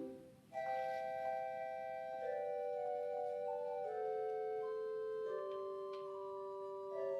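1979 Austin pipe organ played on its principal stops. A loud low chord cuts off right at the start, and after a short gap a softer, brighter passage of sustained notes begins, its voices moving slowly from chord to chord.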